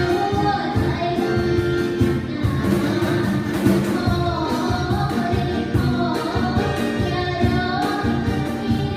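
Live band playing a song with a lead singer over a steady drum beat, during a sound-check run-through.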